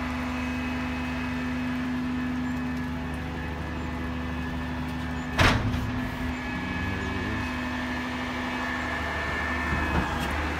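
Peterbilt 348 roll-off hoist truck's diesel engine running steadily with its PTO-driven hydraulics engaged, a constant hum with a thin whine on top. A single loud clunk about five and a half seconds in, and a lighter knock near the end.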